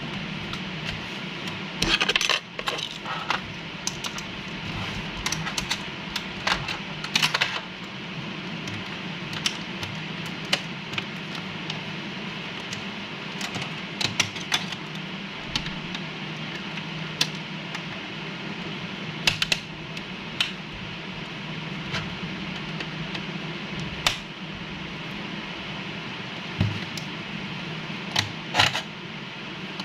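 Fingernails tapping and clicking on the plastic underside of an Acer laptop, in irregular sharp clicks that come in small clusters, over a steady low hum.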